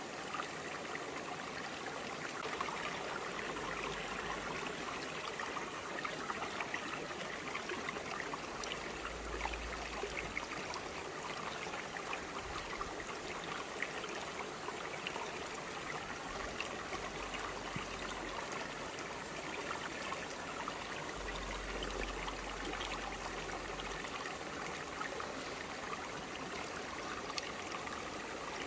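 Shallow forest stream running over broad flat rocks: a steady babble of flowing water with many small splashes and trickles.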